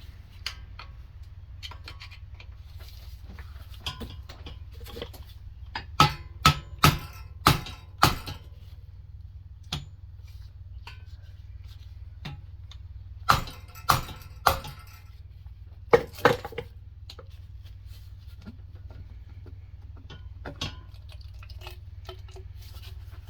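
Mallet blows knocking on a stuck engine valve cover to break it loose: a quick run of five sharp knocks, then after a pause three more and then two, with smaller clicks between, over a steady low hum.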